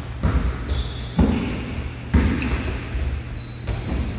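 A basketball bouncing on a hardwood gym floor about once a second, each thud echoing in the hall, with high-pitched sneaker squeaks over the second half.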